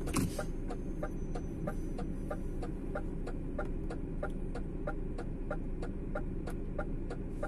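Steady low rumble of a DAF truck's running engine heard from inside the cab, with a regular ticking about three times a second.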